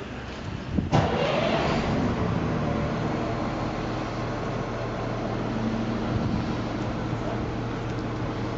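Motor vehicle engine running with a steady low hum that comes in abruptly about a second in.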